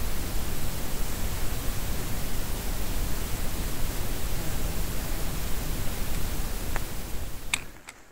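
Wind buffeting the microphone: a loud, steady, rushing rumble with hiss. It drops away about seven and a half seconds in, leaving a few light clicks.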